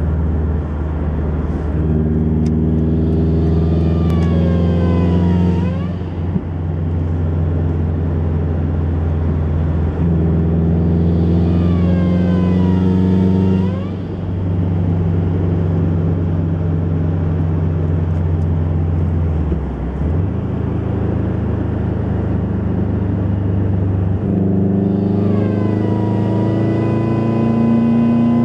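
Turbocharged flat-four engine of a stage 2-tuned Subaru WRX with a catless downpipe, pulling under boost three times and running steadily between pulls. During each pull a hiss and odd pitched sounds come in, a noise heard only in boost that the owner suspects is a boost leak.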